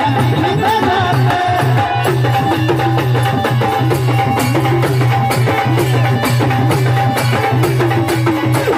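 Marathi gondhal folk music: a steady drum beat with a wavering melody over a constant low drone.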